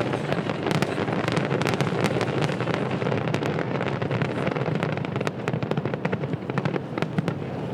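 Fireworks in a dense barrage: a continuous rumble of bursts with rapid sharp crackles throughout, thinning slightly in the last few seconds.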